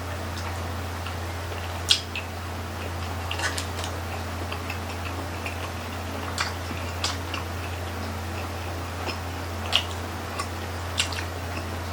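Eating sounds from people chewing grilled chicken-intestine barbecue sticks: soft chewing and squishing with a dozen or so scattered sharp clicks, over a steady low hum.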